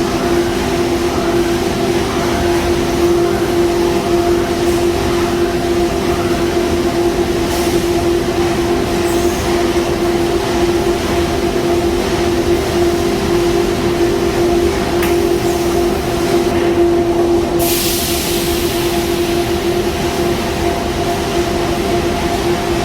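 Automated corrugated-cardboard conveyor line running, giving a loud, steady machine hum with a constant drone tone. A short burst of hiss comes about three quarters of the way through.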